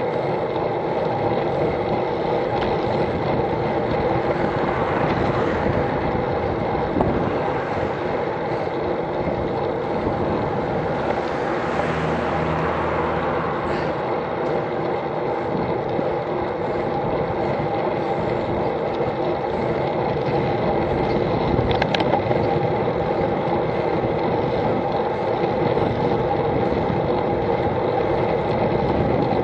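Steady rolling road noise from a bicycle, with wind buffeting the bike-mounted camera's microphone.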